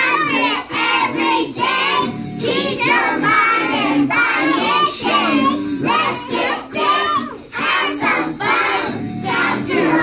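A group of young children singing and chanting along with a music track, in short phrases about twice a second.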